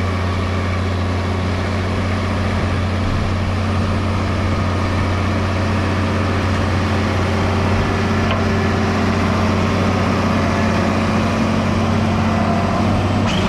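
Tractor engine running at a steady speed, an even low drone that doesn't change through the whole stretch.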